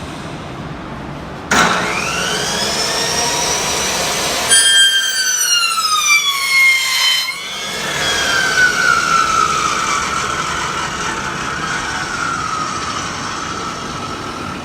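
Hose cutoff saw starting about a second and a half in with a rising whine, then its blade cutting through steel-braided hydraulic hose for about three seconds, the whine dropping in pitch under the load. It then runs on with a whine that slowly sinks in pitch.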